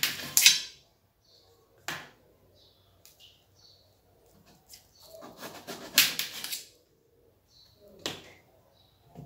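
Kitchen knife slicing a raw green mango over a steel plate: crisp cuts through the firm fruit with the blade clicking on the plate, in separate strokes at the start, about two seconds in, in a quick run around the middle, and once more near the end.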